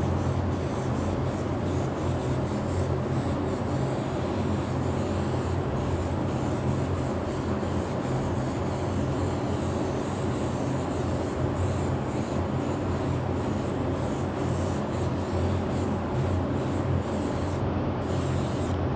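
Airbrush hissing steadily as it sprays a coat of silver sealer onto the inside of a polycarbonate RC car body, with a few brief breaks in the hiss; the hiss stops shortly before the end. Underneath runs a steady low hum.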